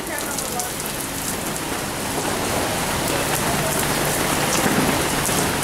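Heavy hurricane rain pouring down steadily, an even hiss.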